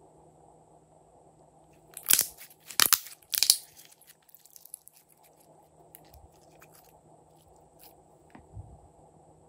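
Glossy slime squeezed and squished between the fingers, giving three loud bursts of crackling, popping air pockets about two seconds in, then a few faint pops and clicks.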